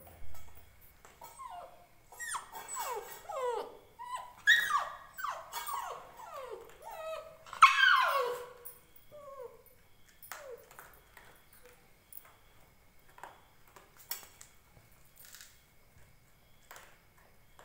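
Indian Spitz puppy crying: a string of high whines and yelps that fall in pitch, loudest about eight seconds in, then thinning out to a few faint cries.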